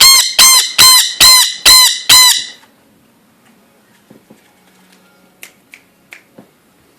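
Blue Indian ringneck parakeet giving a rapid run of about six loud, shrill screeches, a little over two a second, that stops about two and a half seconds in; a few faint clicks follow.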